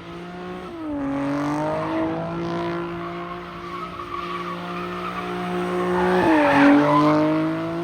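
Car engine held at high revs during a burnout or slide, with tyre squeal over it. The engine note sags and picks up again twice, about a second in and near the end, and the tyre noise swells loudest toward the end.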